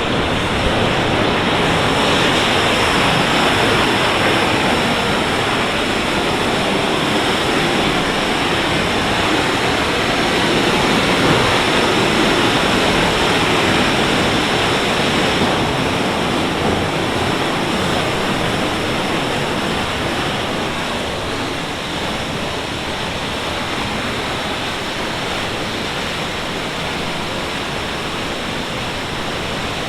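The Maligne Canyon waterfall: a steady, loud rush of falling water, easing slightly in the last third.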